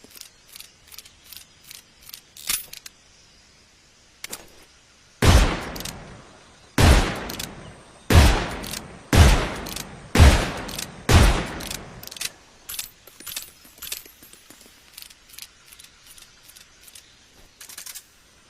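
Colt single action revolver firing six shots, about a second apart, each with a ringing tail. They are preceded and followed by light metallic clicks of the revolver's action.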